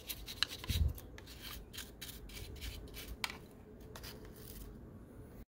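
Toothbrush bristles scrubbing over the panel lines and underside of a plastic scale-model car body to brush out dried wax residue: a run of short, faint scratchy strokes, with a low bump from handling the body about a second in.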